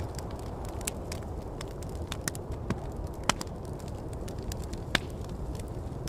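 Campfire crackling: scattered sharp pops and snaps, two louder ones in the middle, over a steady low rush of wind.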